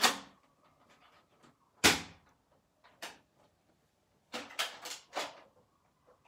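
Hard plastic clicks and clacks from a Nerf Fortnite SP-L blaster being worked by hand: one sharp clack about two seconds in, the loudest, then a single click and a quick run of three or four clicks near the end. The blaster is being primed and triggered but is not shooting.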